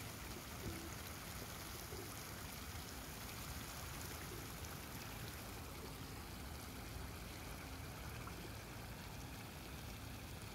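Water trickling and splashing steadily in a stone street fountain.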